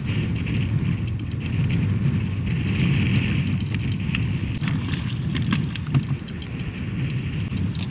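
Wind rumbling on the microphone over choppy river water slapping against a kayak hull, with scattered small clicks and knocks.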